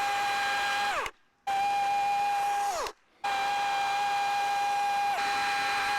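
Chainsaw running at a steady high whine while cutting the corners out of a wooden block, heard in three short edited stretches; each time the trigger is let off, the pitch falls away.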